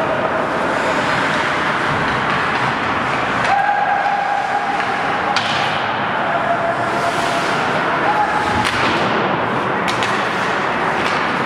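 Ice hockey game in an indoor rink: a steady din of skating and play on the ice with some distant voices, broken by a few sharp knocks at about five and a half, nine and ten seconds in. A steady tone is also held for a couple of seconds near the middle.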